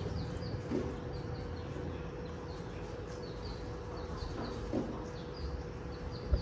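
Small birds chirping over and over, short high chirps that each slide downward, over a faint steady hum.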